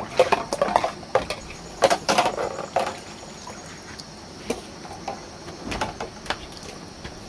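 Light clatter and knocking of small hard objects being handled: a quick run of clicks and knocks for about three seconds, then only a few scattered clicks.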